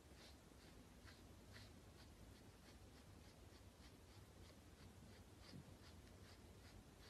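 Faint, quick strokes of a small pet grooming brush through a chinchilla's dense fur, a soft brushing scratch about three times a second.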